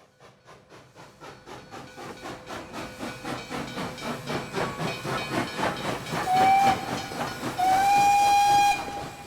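Steam locomotive approaching, its exhaust chuffs about three a second growing steadily louder, then its whistle: a short blast followed by a longer one of about a second.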